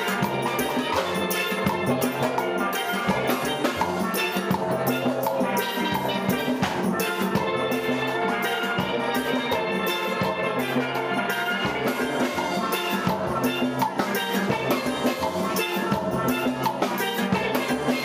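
Steel band music: steel pans ringing out a melody and chords over a steady percussion beat.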